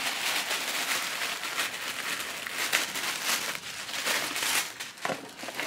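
Tissue paper crinkling and rustling continuously as it is unwrapped by hand, with a few sharper crackles.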